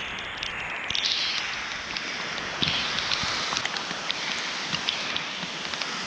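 Heavy rain falling on open water: a steady hiss, with scattered sharp ticks of individual drops.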